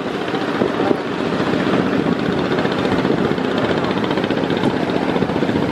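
Engines of a large passenger river launch running steadily under way, mixed with the rush of water and wind.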